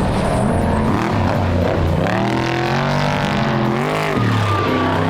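Off-road race vehicle's engine revving hard, its pitch climbing and falling with the throttle, with a quick drop and climb again about four seconds in.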